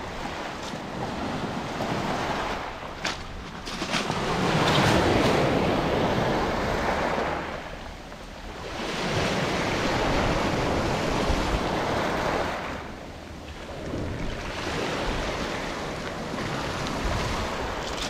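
Small sea waves breaking and washing over a pebble beach, the surf swelling and easing about every four to five seconds. A few sharp clicks come about three seconds in.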